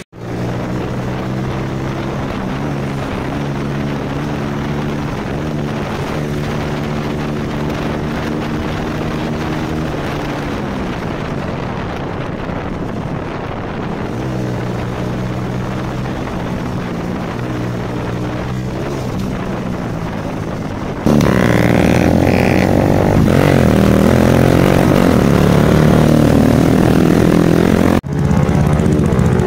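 Motorcycle engine running while riding, a steady note whose pitch drifts a little with the throttle. About two-thirds of the way through it turns abruptly louder, and it dips briefly near the end.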